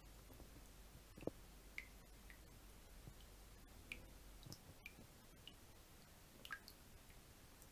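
Water drops falling irregularly, making faint, short plinks that rise in pitch, with an occasional duller tap.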